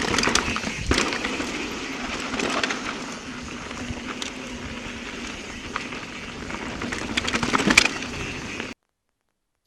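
Mountain bike rolling over a trail: steady tyre and rolling noise with frequent knocks and rattles. It cuts off abruptly to silence near the end.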